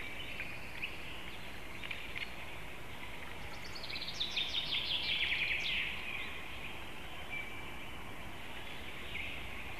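Small songbirds singing in the forest: scattered high chirps throughout, and one louder song of quick repeated notes falling in pitch, from about three and a half to six seconds in.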